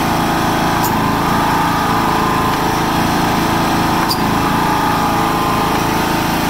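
Kawasaki 14 hp single-cylinder OHV engine of a John Deere LX176 lawn tractor running steadily with the mower deck's PTO engaged, the blades spinning. Two faint clicks, about a second in and about four seconds in.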